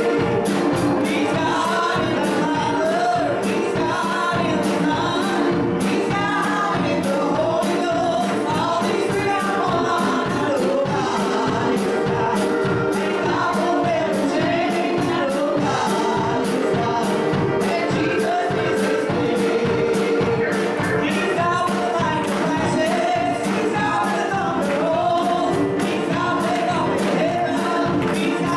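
Women singing a gospel song through microphones, over instrumental accompaniment with a steady beat.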